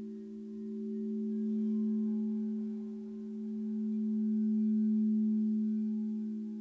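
Singing bowl ringing with a steady low hum and fainter higher overtones, swelling and fading slowly about every three seconds.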